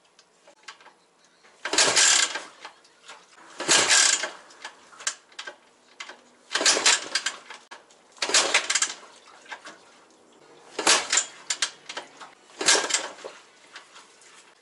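Yamaha SR500 single-cylinder four-stroke being kick-started: six kicks in three pairs, each a short burst of noise about half a second long as the engine turns over. The engine does not catch and run.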